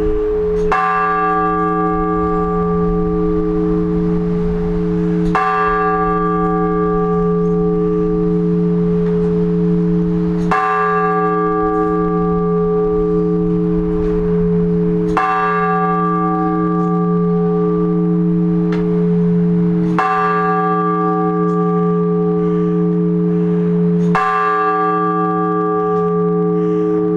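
A large Orthodox church bell tolled in slow, even single strokes about every five seconds, six times. Each stroke rings on as a long hum until the next. This is the measured one-bell blagovest that calls the faithful to the all-night vigil.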